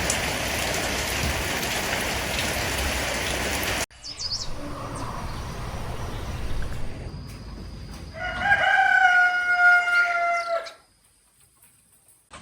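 A rooster crowing once, one long call of about two and a half seconds that falls slightly at the end. It is preceded by a steady rushing noise that cuts off suddenly, then fainter background noise with a few high chirps.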